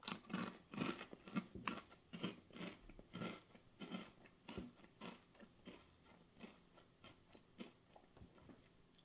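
Someone chewing thick ridged potato chips (Ruffles Double Crunch) with the mouth close to the microphone: a bite, then a run of crisp crunches, about two or three a second, that grow sparser and softer toward the end.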